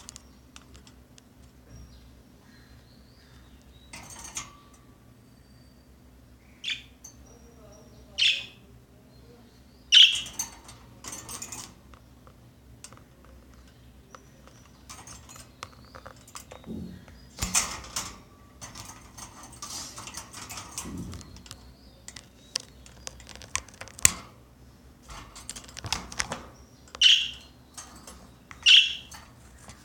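Budgerigar giving short, sharp chirps every few seconds, with clicks and rustling in between.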